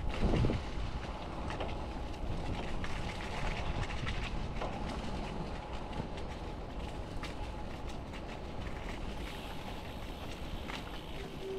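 Bicycle towing a trailer rolling along a street: a steady rolling rumble full of small rattles and clicks, with a louder thump just after the start.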